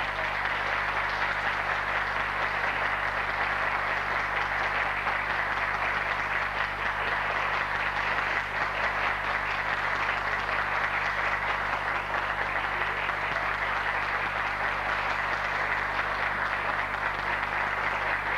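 Audience applauding steadily: a dense, even clapping from a full hall that holds at one level throughout.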